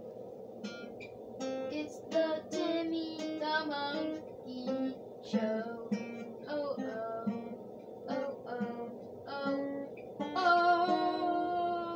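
Guitar music: single notes picked one after another as a short melody, then a strummed chord about ten seconds in that rings on.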